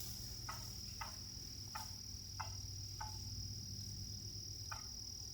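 Short, sharp calls about six times, irregularly spaced, from a wild turkey hen with poults, over a steady high insect trill.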